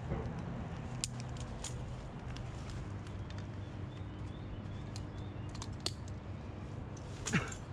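Scattered light clicks and taps over a steady low hum, with a louder brief sound near the end.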